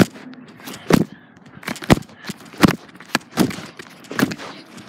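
Irregular sharp thumps and knocks, about one or two a second, from the hand-held phone being jostled as a child scrambles up a steep slope.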